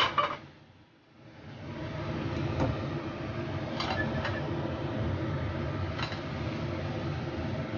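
Tuna, tomato and oil simmering in a stainless steel frying pan: a steady frying hiss over a low hum, with a few light clicks of a wooden spatula against the pan. A sharp clack right at the start, then the sound drops away for about a second before the steady frying comes back.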